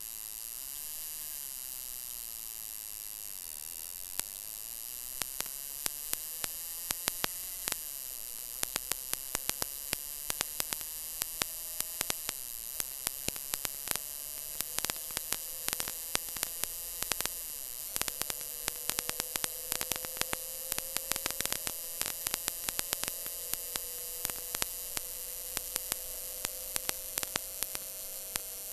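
Steady electrical hum and high whine with static and frequent irregular crackling clicks, and a faint tone slowly rising in pitch in the second half.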